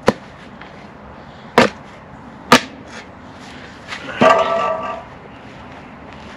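Spade blade chopping down into grass sod to cut a piece out, three sharp strikes about a second apart, followed about four seconds in by a short pitched sound lasting under a second.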